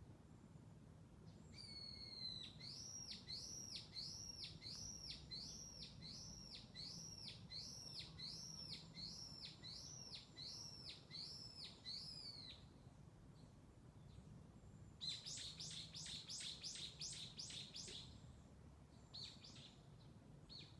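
A songbird singing: a steady run of about a dozen identical arching chirps, each under a second long, followed after a pause by a quicker series of short down-slurred notes and a few more near the end.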